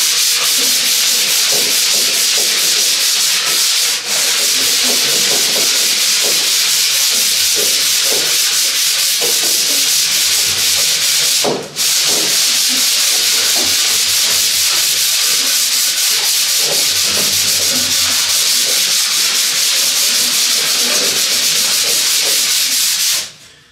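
220-grit sandpaper rubbed by hand over the wood board's dried water-based polycrylic finish, a steady scratchy hiss of quick strokes. It is knocking the raised grain and burrs off the finish to leave the surface smooth. It breaks off briefly about four seconds in and again near the middle, and stops just before the end.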